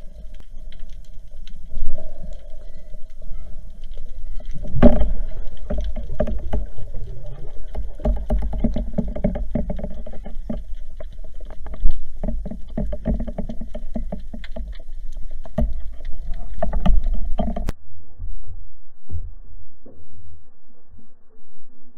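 Muffled underwater noise as a diver moves a speargun through the water: a low rumble with many small clicks and knocks. About eighteen seconds in it changes abruptly to a quieter low hum.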